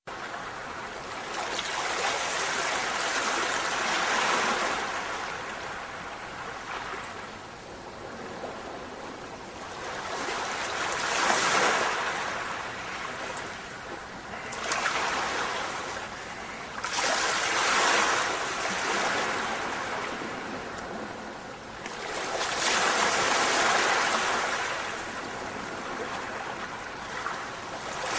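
Rushing water noise that swells and fades about every five to six seconds.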